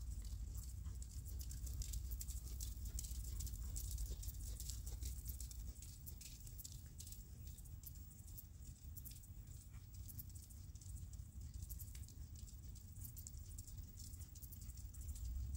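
Hoofbeats of a horse trotting on soft arena sand, a muffled thudding with faint scattered patter. It fades about six seconds in and grows again near the end.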